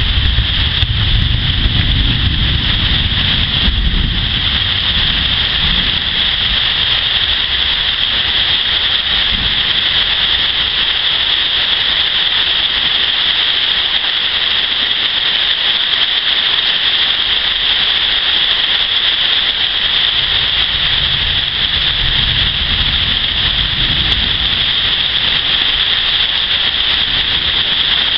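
Heavy rain pouring steadily onto standing swamp water and vegetation, a dense even hiss. Low rumbles of thunder swell and fade in the first few seconds and again about three quarters of the way through.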